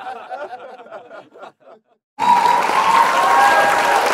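Background music fading out, then after a moment's silence a crowd breaks into applause and cheering about halfway through.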